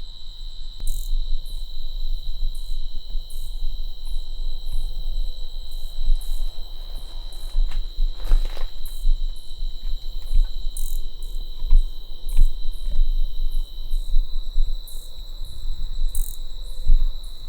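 Crickets trilling in a steady, continuous high-pitched drone, over an uneven low rumble.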